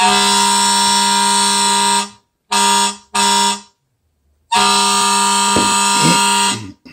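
A horn sounded in blasts at one steady, buzzing pitch: a long blast of about two seconds, two short ones, then another long blast.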